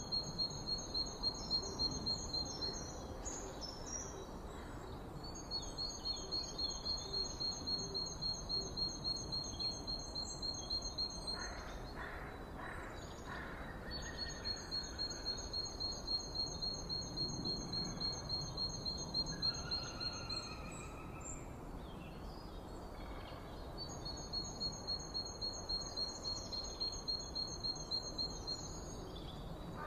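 Outdoor nature sounds: a high, rapidly pulsing trill comes in four bouts of about five seconds each, with a few softer chirps in the gaps, over a steady background hiss.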